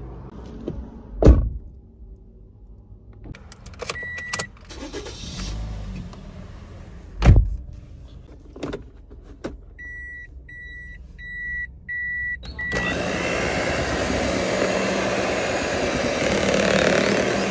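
A car door shuts with a heavy thud about a second in, and again about seven seconds in. Then a Toyota's dashboard warning chime beeps five times in an even rhythm. From about 13 seconds on, an Oster electric hand mixer runs steadily, beating chocolate cake batter in a bowl.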